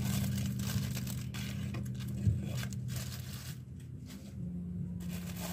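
Plastic chocolate wrappers rustling and crinkling as packs are handled in a cardboard box, with one brief knock a little past two seconds in. Under it runs a steady low hum, and the rustling dies away in the last couple of seconds.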